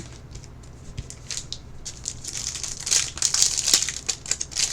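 Crinkling and crackling of packaging being handled as a trading-card box or pack is opened, with a sharp click at the start. It grows busier and louder from about two seconds in.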